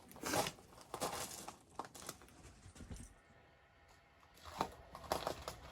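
Scattered soft rustles and clicks of handling noise close to the microphone, with a near-silent pause in the middle.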